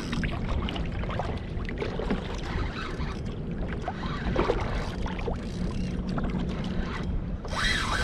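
Water sloshing and lapping against a kayak hull, with scattered small knocks.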